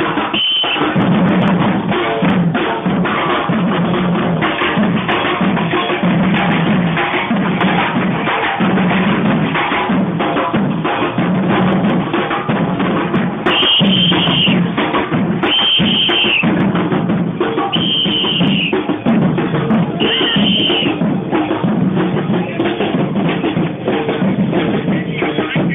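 Murga street drums beaten in a steady, driving rhythm, with a strong low bass-drum beat. A shrill whistle sounds briefly at the start and blows four long blasts in the second half.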